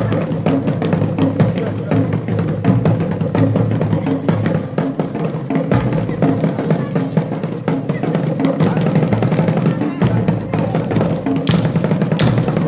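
Traditional Nigerien drumming accompanying a harvest dance: drums struck in a fast, dense, unbroken rhythm.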